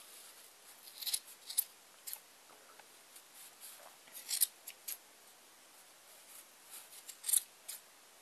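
Scissors snipping through the loops of a yarn pom-pom: short snips at irregular intervals, in small clusters.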